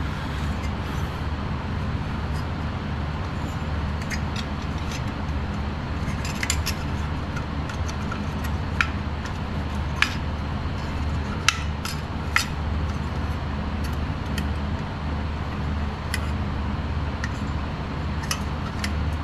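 Scattered light clicks and clinks of a portable camping gas stove and its packaging being handled, over a steady low hum.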